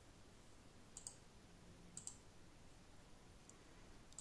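Faint clicks of a Sandberg wireless mouse's buttons over near silence, about four times a second or so apart, mostly as quick pairs.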